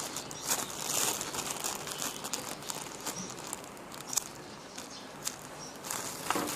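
Plastic crinkling and rustling with many small irregular clicks, as squishy toys and their wrapping are handled.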